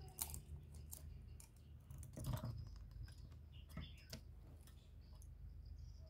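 Caged spotted dove moving about, making a scatter of soft clicks and rustles, the loudest about two seconds in, over a steady low hum.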